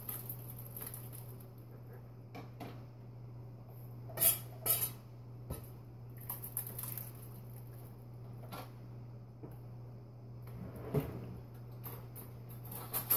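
Spoon scraping and knocking against a plastic mixing bowl as moist cornbread dressing is scooped out into a crock pot, with two sharper knocks about four seconds in and scattered lighter clicks, over a low steady hum.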